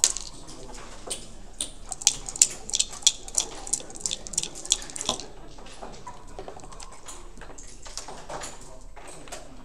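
A sharp click, then dice being shaken in a backgammon dice cup, clicking about four times a second for about three seconds, ending in a short rattle as the dice are thrown onto the board.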